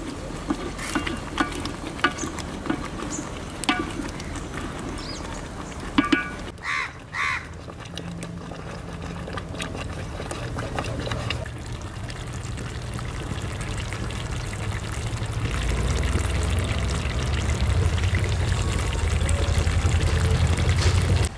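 A wooden spatula stirs thick gravy in a hammered metal pot over a wood fire, with scattered knocks and scrapes against the pot in the first few seconds. In the second half a steady low rumble builds and becomes the loudest sound.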